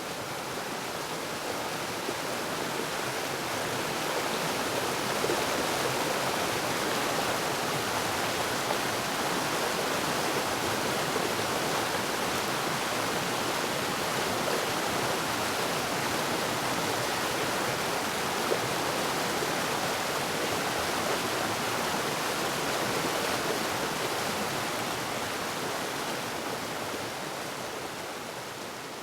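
Waterfall: a steady rush of falling water, swelling up over the first few seconds and fading down near the end.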